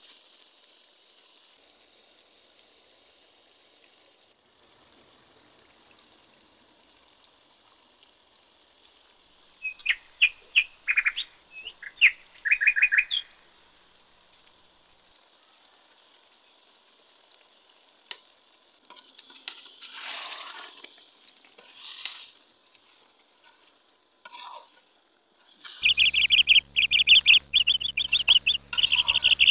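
Metal spatula scraping and squeaking against a metal cooking pot as braised chicken and soaked mung dal are stirred. There is a cluster of short squeaky strokes about ten seconds in, softer scraping around twenty seconds, and a fast, loud run of strokes near the end. Between them is a faint steady hiss.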